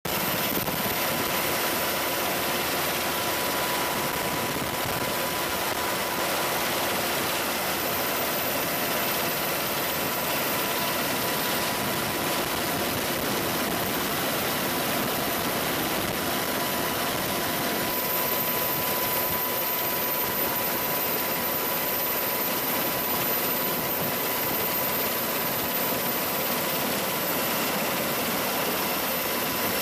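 Steady noise of a helicopter in flight, heard from aboard: an even rush with a constant whine running through it.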